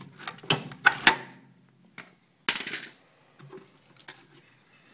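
Heavy-duty plumbing pliers working a refrigerator compressor's mounting pin, metal clanking on metal. A quick run of sharp clicks and knocks comes in the first second or so, then a short scrape about two and a half seconds in.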